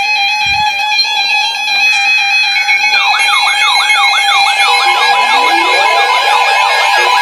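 Several NOAA weather radio receivers sounding their tornado-warning alarms. Steady alert tones sound throughout, and about three seconds in a fast, repeating siren-like warble joins in and keeps cycling.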